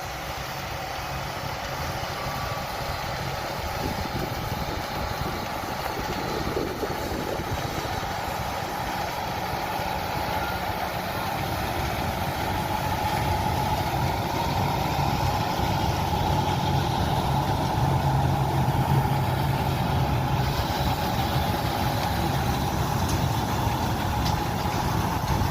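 Engine of heavy sugar beet harvest machinery running steadily, gradually growing louder.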